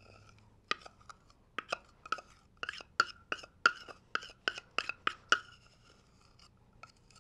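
Metal spoon knocking and scraping inside a plastic measuring cup, clearing thick peanut butter out into a bowl: a string of sharp clicks, each with a short ring, two or three a second, stopping about five seconds in.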